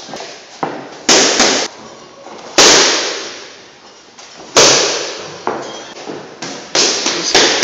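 Boxing gloves smacking into focus mitts: about eight sharp punches at uneven spacing, each echoing briefly. The hardest hits land about two and a half and four and a half seconds in.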